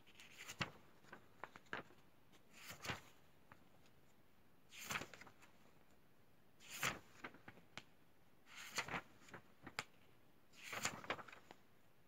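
Paper pages of a book rustling as a hand handles and turns them: short scratchy swishes every second or two, with small ticks between.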